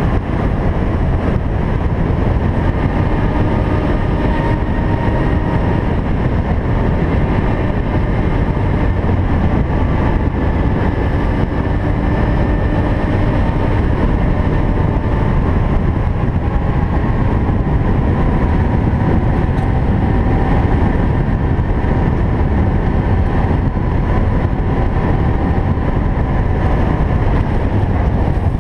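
ATV (quad) engine running steadily at a cruising pace, with the rumble of tyres rolling over a gravel track.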